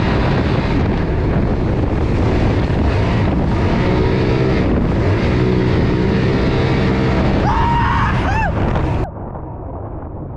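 Sea-Doo Spark–based jet kart running flat out at about 40 mph, its engine and jet noise heavily buffeted by wind on the microphone. About nine seconds in it cuts off abruptly to soft background music.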